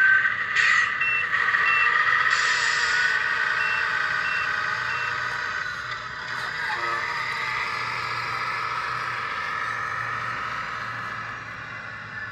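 Sound module of a 1/14-scale RC King Hauler truck playing a simulated diesel engine through its small speaker, the pitch gliding up and down as the truck moves. Evenly spaced reversing beeps sound in two short runs within the first five seconds, and a short hiss comes about two seconds in.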